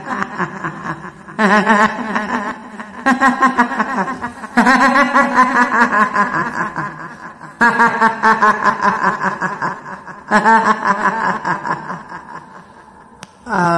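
Horror-style kuntilanak ghost laugh: a woman's drawn-out cackling 'hihihi' laughter in about six long bursts with short breaks between them, fading near the end.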